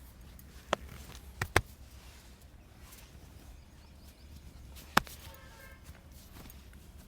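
Four sharp percussive cracks made during a head and neck massage: one about a second in, a quick pair half a second later, and a last one about five seconds in, over a low steady background.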